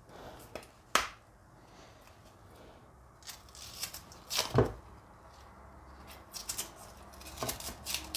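Kitchen knife cutting and scraping the bark-like peel off cassava roots: scattered sharp cuts and scrapes, with a louder one about a second in and another around four and a half seconds, then a quick run of small cuts near the end.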